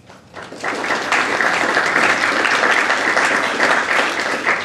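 Audience applauding with many hands clapping, building up within the first second, holding steady, then starting to die down at the end.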